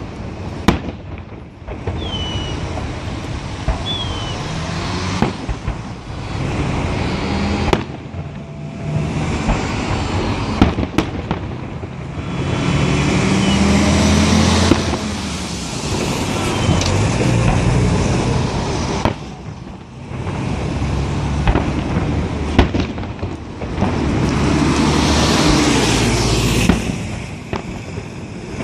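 Festive fireworks salute going off: repeated sharp bangs of bursting shells over a continuous dense din of further bursts, swelling and easing in waves.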